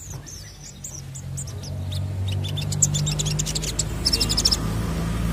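Male olive-backed sunbird singing: a few scattered high chirps, then from about two seconds in a rapid, high twittering run with a dense burst of fast notes near four seconds, over a low steady hum.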